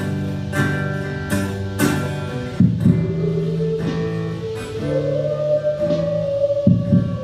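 Acoustic guitar played live in a steady rhythm, its strokes sharp and regular. Over it, a long note slides up about halfway through and then holds.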